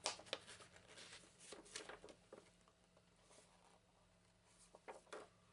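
Faint paper rustling and a few soft clicks as a fold-out paper rules sheet is handled and unfolded, dying away for a couple of seconds in the middle.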